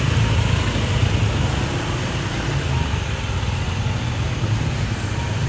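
Steady road traffic noise: an even low rumble of passing vehicles with no distinct events.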